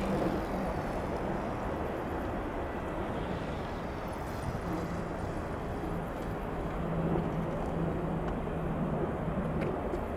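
Jet engines of a twin-engine widebody airliner at take-off thrust as it lifts off and climbs away, a steady low rumble.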